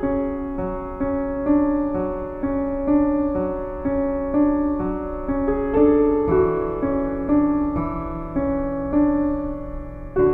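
Piano music: a slow, gentle run of notes, about two a second, each ringing and fading before the next, with a change of chord about halfway through.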